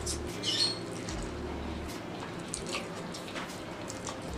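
A person slurping and chewing spicy stir-fried instant noodles: short wet slurps and mouth smacks, several times over a few seconds.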